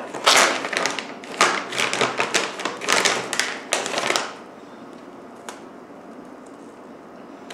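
Plastic Nutella Biscuits pouch crinkling and rustling in a dense run of crackles for about four seconds as a hand rummages inside it. Then it goes quiet, apart from one short crunch as a biscuit is bitten.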